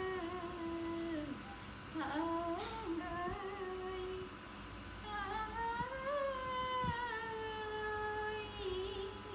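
A person humming a slow tune in long, drawn-out notes that glide up and down, the longest held for about three seconds in the second half.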